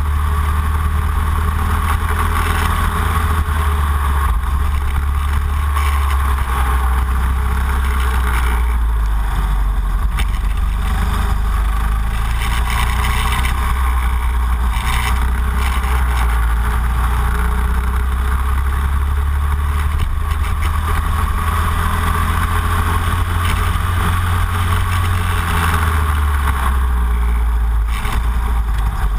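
Racing kart engine running at speed around a circuit, its note shifting down and back up a couple of times.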